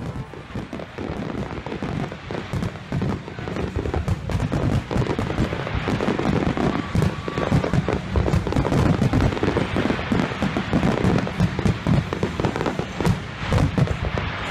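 Fireworks display: a dense barrage of aerial shell bangs and crackle in quick succession, growing louder and denser about two seconds in.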